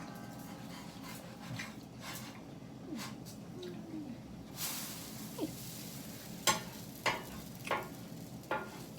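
Hot cakes frying in a hot pan, sizzling, with a louder hiss about halfway through and a few sharp clicks in the second half.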